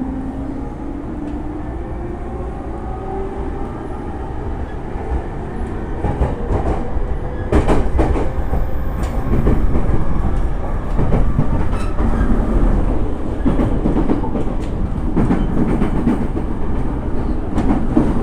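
E231 series EMU running sound heard from inside the car: a motor tone rising in pitch as the train picks up speed over the first few seconds, over steady wheel and rail noise. From about seven seconds in come sharp repeated wheel clacks over rail joints, and the running noise grows louder.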